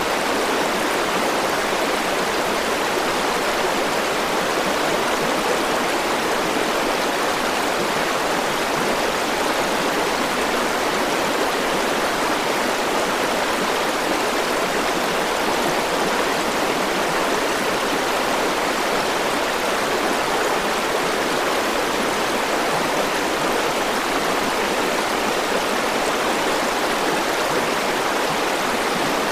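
River water flowing and rushing steadily over stones.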